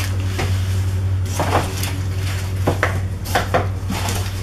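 A large cardboard box and a plastic-wrapped part being handled: several short knocks and crinkles, over a steady low hum.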